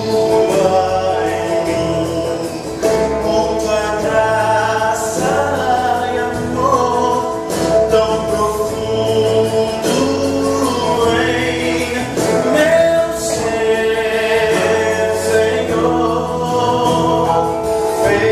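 Gospel choir singing with a male soloist over instrumental accompaniment with bass and drums, sustained sung chords that change every second or two.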